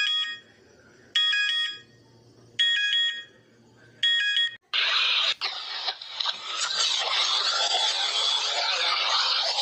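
Mock Emergency Alert System alarm audio: short electronic beep bursts of several stacked tones, one about every second and a half. About five seconds in they give way to a loud, harsh rush of static-like noise that carries on.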